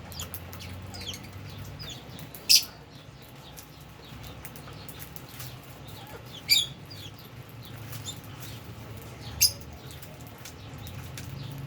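Lovebirds chirping in an aviary: three short, loud, shrill calls a few seconds apart stand out over softer scattered chirps.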